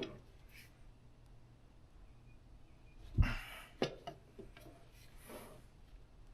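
Objects handled during tractor servicing: a dull thump about three seconds in, a sharp clack just after, and brief rustles, over a steady low hum.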